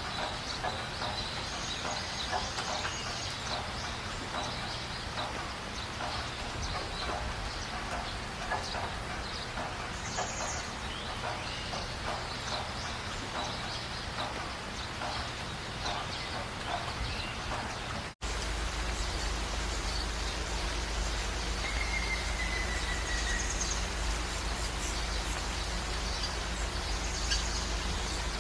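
Rain falling while birds call and chirp. About eighteen seconds in, the sound cuts out for an instant and switches to a steadier rain recording with a low rumble, a downward-sliding bird whistle and a few scattered chirps.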